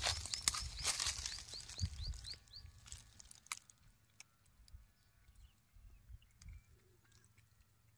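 A puppy lapping milk from a plate, making soft wet clicks, with a quick run of high rising chirps in the first couple of seconds. It goes almost quiet about halfway through.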